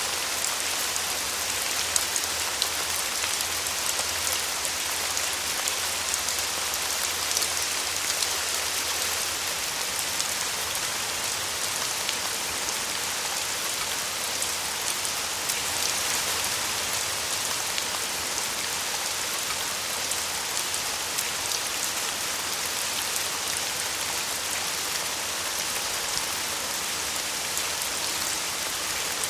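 Steady rain falling on a surface: a dense even hiss of many small drops, with sharper individual drop ticks now and then.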